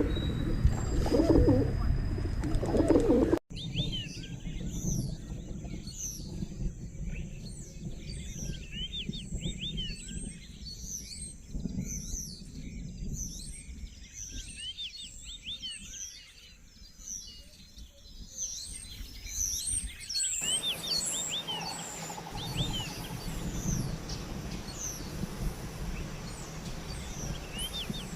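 A dove or pigeon cooing in low repeated phrases, then an abrupt cut to a chorus of small birds chirping with many quick high calls. About two-thirds of the way through, a second cut brings a similar chorus over a steady hiss.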